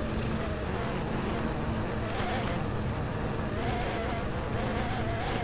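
Snowmobile engine running steadily while riding along a snowy trail, a buzzing whine that wavers slightly in pitch over a low rumble, with brief bursts of hiss about two seconds in and again a little later.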